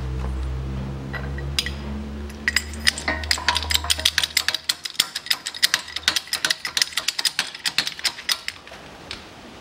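A low steady hum for the first few seconds, then a fast run of sharp clicks and ticks, several a second, as a hydraulic shop press pushes a new front wheel hub bearing into a 2007 Mazda 6 steering knuckle.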